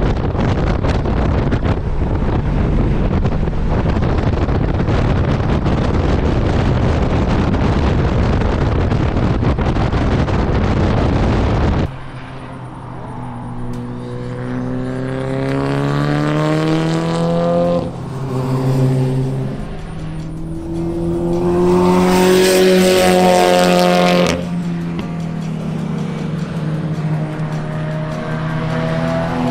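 About twelve seconds of steady wind and road rush, then a car engine accelerating hard on a racetrack. Its pitch climbs, drops at a gear change about six seconds later, and climbs again to its loudest. It eases off a few seconds before the end.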